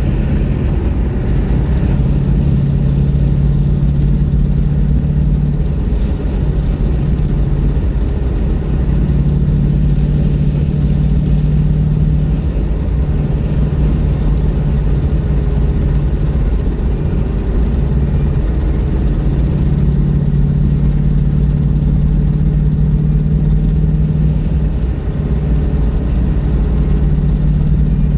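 A car driving along: a steady low engine and road drone that dips briefly a few times.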